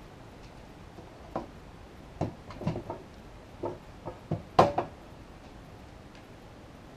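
Handling knocks from the metal chassis of a Behringer Ultragain Pro MIC2200 rack preamp as it is turned around and set back down on a rubber mat: a scatter of about ten short clunks, the loudest a little past halfway.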